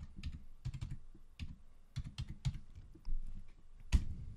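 Computer keyboard keys tapped in quick, uneven runs as a web address is typed, with one sharper, louder key press about four seconds in.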